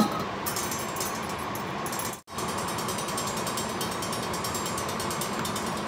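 A sharp click as the stainless steel lid goes on the pot. Then ground beef sizzling under the lid, a steady dense crackle of rapid tiny pops, which cuts out briefly about two seconds in.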